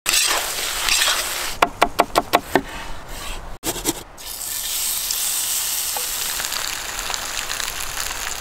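Food sizzling in a hot pan, a steady hiss; about a second and a half in, a quick run of six sharp knocks, and just past halfway the sound cuts out for a moment before the sizzling resumes.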